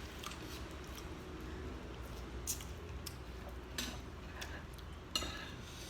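Quiet eating of roast chicken: a few scattered light clicks and taps from the meal over a steady low hum.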